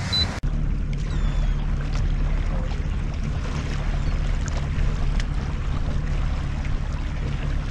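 Wind buffeting the microphone and water lapping around a small fishing boat drifting with its outboard shut off, a steady low rumble with a brief gap about half a second in.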